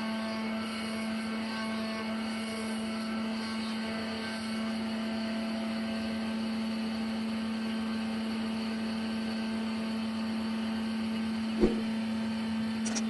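Steady drone of machinery running, with a strong constant hum and a single sharp knock near the end.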